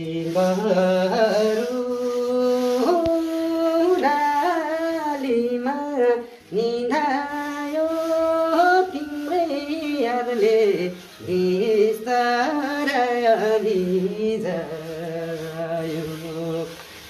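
A man singing a Nepali folk tune without instruments, in long held, wavering notes with short breaks between phrases.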